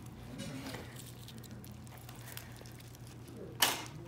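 Dissecting scissors cutting into a fish's gill area: faint scraping of the blades early on, then one loud, sharp snip near the end. A steady low hum runs underneath.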